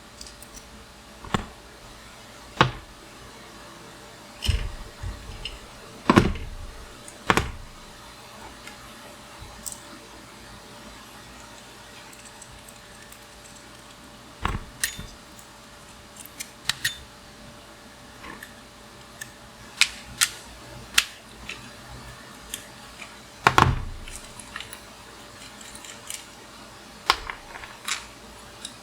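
Metal tools and small bicycle parts being handled and set down: irregular sharp clinks and knocks, about a dozen, with pauses between them.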